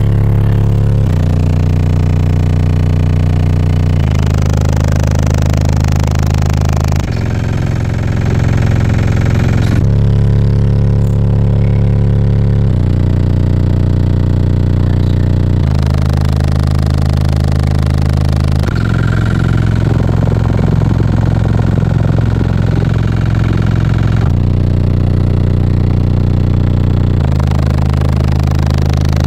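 Car audio system with four 10-inch RE Audio SXX subwoofers in a 160-litre ported box, playing bass-heavy music very loud: long deep bass notes that change every few seconds.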